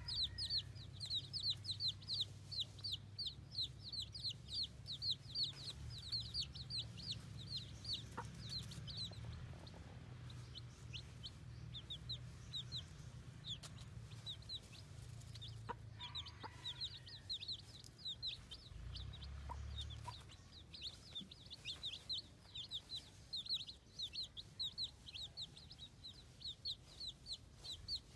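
Baby chicks peeping: a rapid, continuous run of short, high, falling peeps, several a second, thinning out for a few seconds near the middle.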